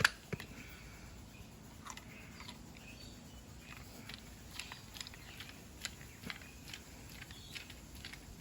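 Scattered faint clicks and taps of a torque wrench being handled and set, with one sharper click at the very start.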